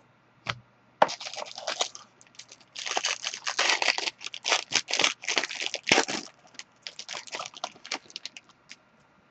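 Crinkling and tearing of card-pack wrapping and packaging being handled and torn open, a dense run of crackles with a few separate clicks.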